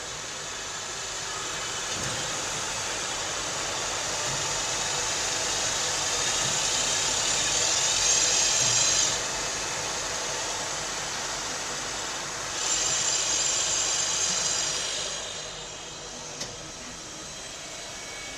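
INDEX MS 32 B CNC multispindle lathe running, a steady mechanical hiss. It swells louder twice, for about a second in the middle and for about two seconds later, then settles quieter near the end.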